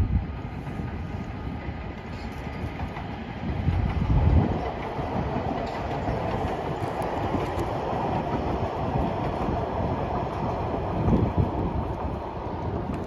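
Rotterdam metro train running past on the rails through a level crossing, its noise building from about four seconds in and staying strong to the end. Low gusts of wind hit the microphone at the start and again around four seconds.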